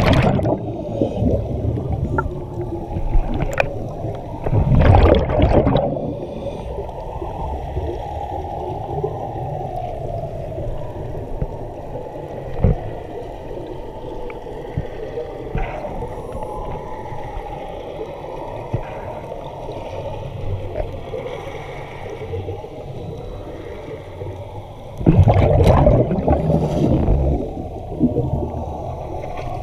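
Scuba regulator exhalations: loud rushes of bubbles sweeping past the underwater camera near the start, about five seconds in, and twice near the end. Between them a steady low underwater rumble.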